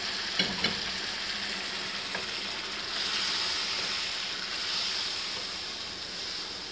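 Goat-trotter (mutton paya) gravy sizzling steadily in a hot wok, stirred with a wooden spoon just after the trotter stock has been poured in. The sizzle swells for a couple of seconds from about three seconds in, and there are two light knocks about half a second in.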